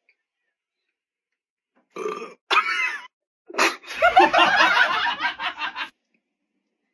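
A person imitating a toad's croak with the voice: two short, wet, burp-like throat croaks, then a longer rattling croak starting about three and a half seconds in.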